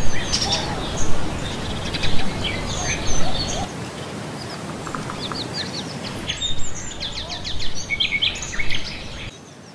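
Songbirds chirping and calling, many short quick notes over a steady outdoor hiss of nature ambience; the sound drops away near the end.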